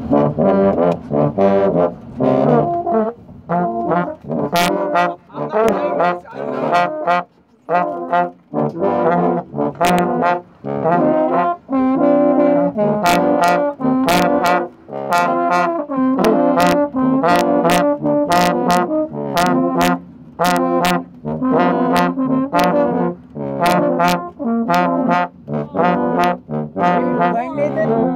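Several trombones playing together in short, punchy notes with brief gaps between them, with sharp regular taps sounding along with them through much of it.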